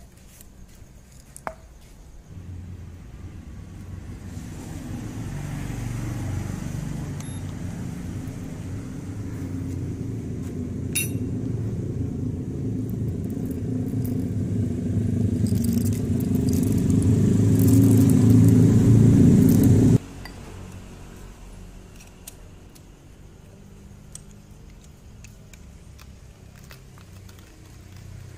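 Low rumble of a road vehicle's engine that grows steadily louder for about eighteen seconds and then cuts off suddenly. Light clinks of coffee beans and glass are heard under it, then a quieter low traffic hum.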